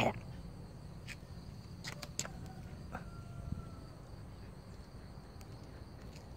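Faint outdoor ambience: insects chirring steadily, with a few light clicks about one, two and three seconds in.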